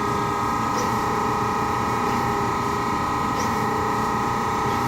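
Brown & Sharpe Micromaster 1236 automatic surface grinder running: a steady machine hum with a constant high whine.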